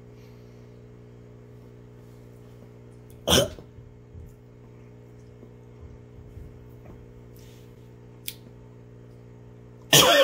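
A man coughing from the burn of a 9-million-Scoville chili extract chocolate: one sharp cough about three seconds in, then two in quick succession near the end, over a steady low hum.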